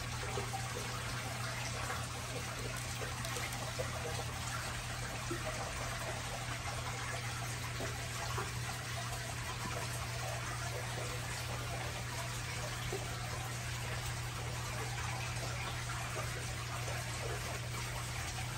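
Aquarium filter running: a steady trickle of water with a low, even hum.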